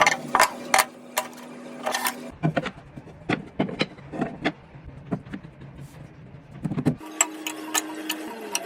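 Woodworking shop sounds in short cut-together clips: irregular sharp knocks and clicks over a steady mechanical hum, the hum changing pitch abruptly twice.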